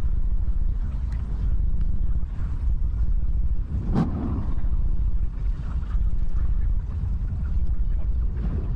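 Low, steady rumble of a slow-moving car heard from inside its cabin. About four seconds in there is a single short, sharp sound.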